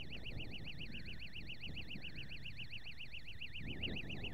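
Electronic bite alarm on a carp rod sounding a fast, steady warbling tone: a fish has taken the bait and is running with the line. Wind rumbles underneath, and there is a rustle near the end as the rod is picked up.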